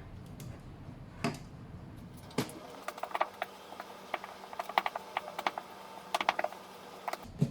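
A run of quick, light clicks and taps in clusters from about three seconds in, after a few single knocks, some with a brief ringing.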